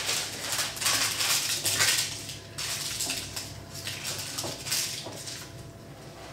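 A sheet of baking paper rustling and crinkling as it is pressed and folded into a glass baking dish. The crinkling is busiest in the first two seconds or so and eases off towards the end.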